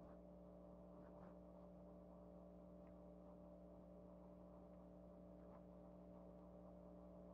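Near silence: a faint, steady electrical hum of room tone, with a few very faint ticks.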